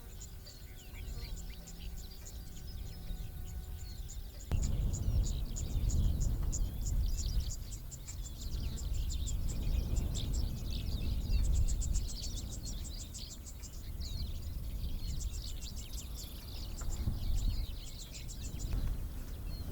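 Birds chirping rapidly and continuously in the savanna. A steady hum plays under them for the first four or so seconds and cuts off suddenly. From then on a low rumble sits beneath the chirping.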